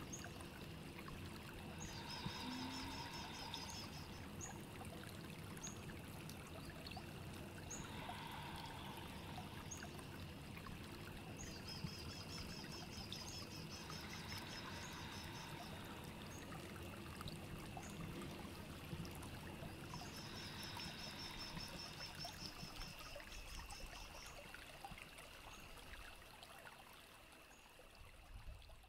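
Steady sound of running water, with a bird singing a short rapid high trill three times, several seconds apart, and single faint chirps in between. The sound fades out near the end.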